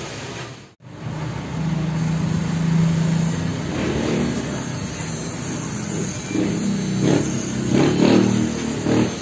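Electric hair clippers buzzing close by, with a brief break under a second in. The buzz swells louder in pulses over the last few seconds as the clippers are run over the scalp.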